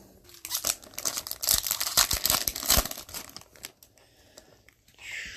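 Wrapper of a hockey card pack being torn open and crinkled, a dense run of crackling that dies away after about three and a half seconds.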